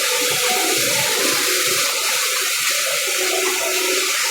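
The Rain Vortex indoor waterfall pouring steadily: a dense, even rush of falling water.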